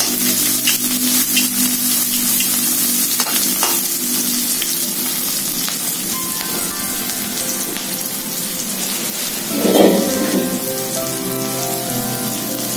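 Diced onion sizzling steadily as it sautés in hot oil in a wok, with a short louder burst of noise about ten seconds in.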